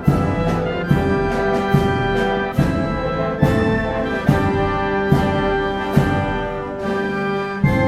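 Brass and orchestral music with a steady beat: held chords, with a strong accent a little under once a second.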